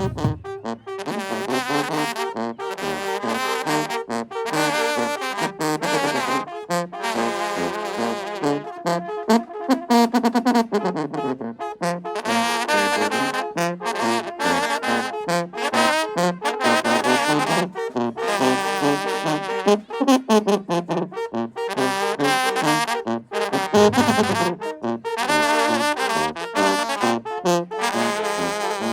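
Mexican banda brass band playing a corrido, trumpets and trombones carrying the tune over a steady beat.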